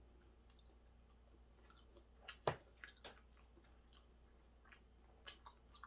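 A person eating quietly, chewing with a handful of short sharp clicks and smacks, the loudest about two and a half seconds in and a few more near the end.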